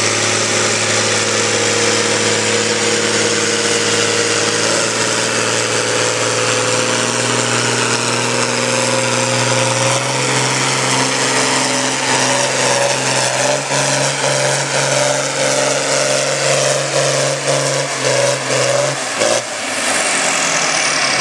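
John Deere 4020 tractor engine running hard under load as it pulls a weight-transfer sled. Its note shifts lower through the second half, and about 19 seconds in the engine throttles back, followed by a high falling whine.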